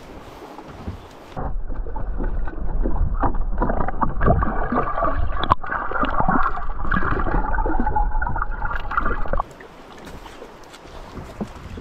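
River water rushing and bubbling as heard underwater, muffled with the highs cut off, from about a second and a half in until near the end. Before and after it there is wind and the rush of the river above the surface.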